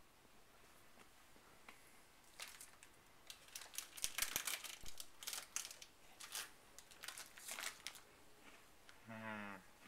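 Packaging being handled: a run of crinkling and rustling, heaviest around four seconds in, then sporadic until near the end. Just before the end a short low hum falls in pitch.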